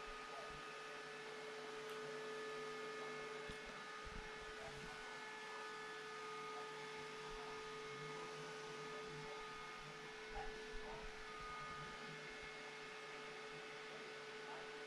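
Faint steady hum at one held pitch, with a few soft knocks around ten seconds in.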